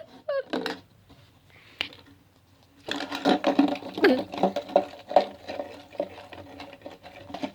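A small motor whirring with clattering and rattling, starting about three seconds in and settling into a steadier hum.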